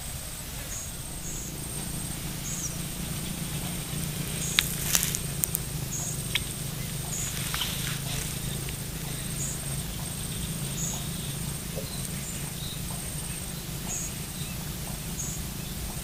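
Riverbank ambience: a steady high-pitched buzz with short high chirps repeating roughly once a second over a steady low hum, and a few sharp clicks about five seconds in.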